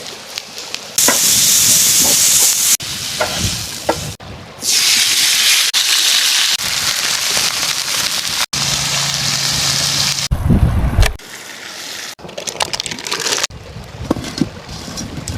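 A series of short cuts of steady hissing from food frying over a campfire and a running stream, with scattered clicks and knocks and a brief low rumble about ten seconds in.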